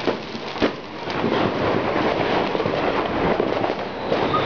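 New Year's fireworks and firecrackers going off: a couple of sharp bangs in the first second, then a dense, continuous crackle and rumble of many explosions.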